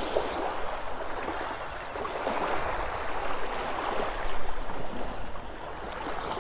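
Small waves lapping and washing onto a shallow pebbly lakeshore: a steady wash of water.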